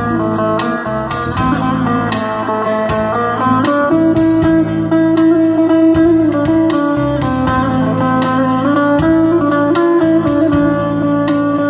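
Instrumental break in a Kurdish folk song: an amplified plucked string instrument plays a stepping melody over a band backing, with no singing.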